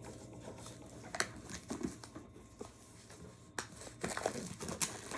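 A cardboard hair-dryer box being handled: scattered light taps and clicks with soft rustling of the packaging.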